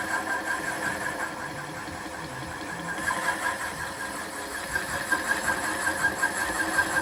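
Precision Mathews PM-30MV milling machine running with a boring head in the spindle, a steady high whine over a constant machine hum. About three seconds in it turns rougher and more uneven.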